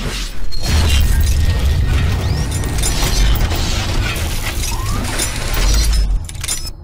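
Cinematic logo-intro sound effects: a deep bass rumble under dense metallic clanking and shattering noise, starting with a hit about half a second in and dying away about six seconds in.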